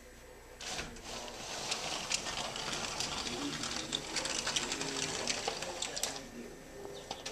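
Sliding glass patio door rolling along its track: a dense, rattling clatter that starts just under a second in and stops about six seconds in.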